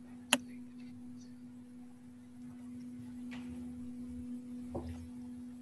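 A steady low hum, with a single sharp click about a third of a second in and two fainter ticks later on.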